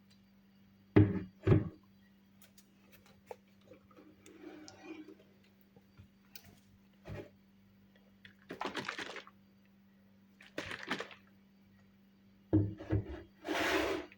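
Kitchen handling noises: scattered knocks and thuds, the loudest two about a second in and a small cluster near the end. Between them come a few short bursts of hiss-like noise, the longest just before the end, over a faint steady hum.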